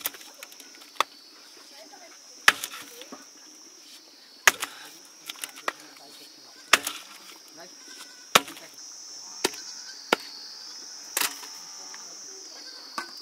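Irregular chopping blows, about one every one to two seconds, each a sharp knock.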